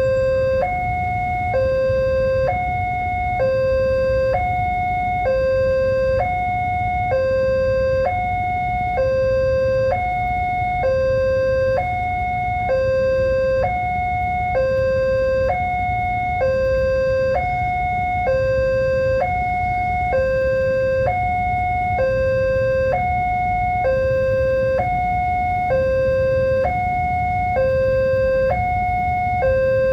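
Railway level-crossing warning alarm sounding its two-tone electronic chime: a lower and a higher note alternating about once a second, steadily, over a low rumble.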